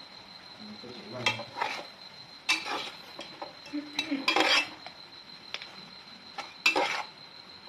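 Metal spatula scraping and clinking against an aluminium cooking pot as duck is stir-fried, in about half a dozen irregular strokes, loudest about halfway through.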